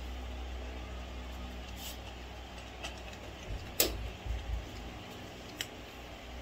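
A cat eating dry kibble from a bowl: scattered crunches and clicks, the sharpest a little under four seconds in, over a steady low hum.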